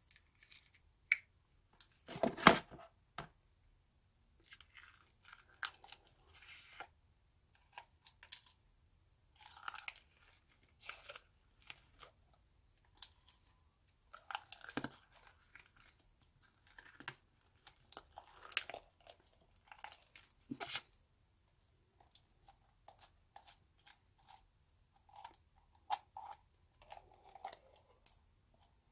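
Foam-bead slime crackling and squelching in irregular bursts as it is scooped out of a plastic jar with a plastic spoon, with clicks and a few sharper knocks of the spoon and jar against plastic, the loudest about two seconds in.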